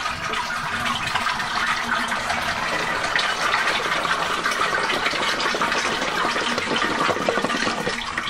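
Toilet flushing: a 1970s Armitage Shanks siphonic cistern emptying into the pan in a steady rush of water that stops about eight seconds in. The supply is isolated, so the float valve is not refilling the cistern.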